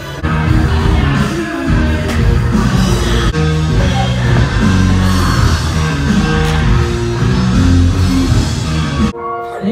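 Loud rock music with a heavy bass line, which cuts abruptly about nine seconds in to a quieter passage of held notes.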